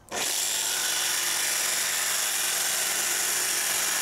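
Electric jigsaw cutting straight along a marked line through a plywood board: a steady, high buzz from the motor and the reciprocating blade.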